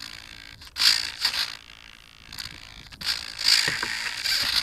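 Scraping and rubbing noise on the glider's onboard camera microphone as the model is handled, in two rough bursts: one about a second in and a longer one from about three seconds in.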